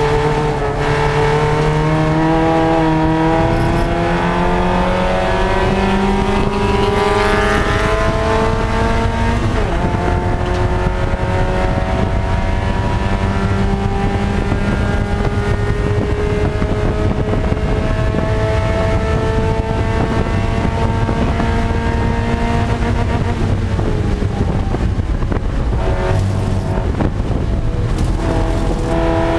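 Spec Miata race car's four-cylinder engine at full throttle, heard from inside the cabin: the engine note climbs for about ten seconds, drops sharply with a gear change, then climbs slowly again in the next gear before the driver lifts off and the note breaks up near the end.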